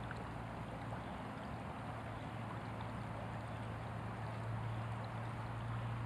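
Shallow creek water running steadily over a riffle, with a low steady hum underneath that grows a little louder near the end.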